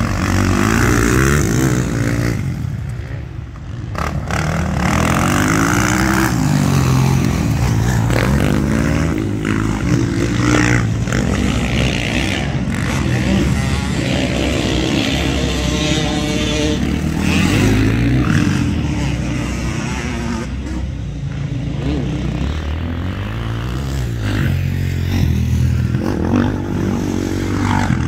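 Two motocross dirt bikes racing past, their engines revving hard and dropping back again and again as the riders work the throttle and gears through corners and jumps.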